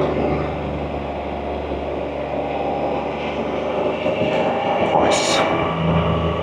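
Can-Am Spyder three-wheeled motorcycle cruising, its engine humming steadily under road and wind noise. A brief sharp hiss comes about five seconds in.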